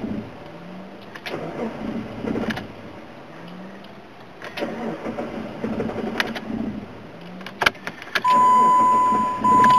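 Car starter motor cranking a fuel-injected engine twice, each time winding up and churning for a couple of seconds without the engine catching: a no-start. About eight seconds in a click is followed by a loud steady electronic chime tone.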